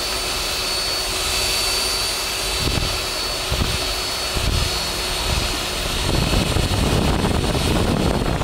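Electric paddle mixer running steadily as it stirs a bucket of runny cement mortar, a constant motor whine over the churning of the mix. About six seconds in the sound turns louder and rougher.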